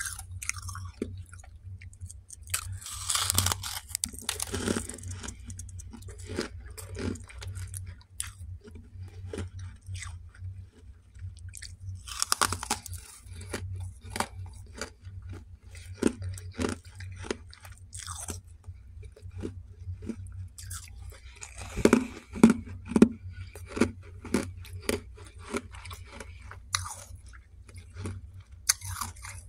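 Fresh freezer frost being bitten and chewed close to the microphone: crisp, crunchy bites in irregular bouts, the loudest a few seconds in, around the middle and about three quarters through. A steady low hum runs underneath.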